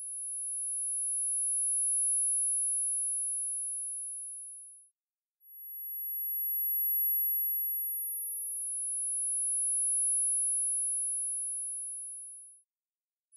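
Very high-pitched pure sine tones made for tinnitus neuromodulation sound therapy, each swelling in and fading out over a few seconds. A first tone fades away, and after a brief gap a slightly higher tone sounds, overlapping a slightly lower one that fades out near the end.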